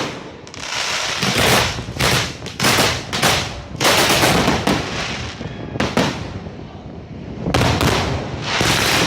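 Fireworks display: a rapid barrage of bangs from bursting shells, overlapping with dense crackling, with several sharp loud reports among them.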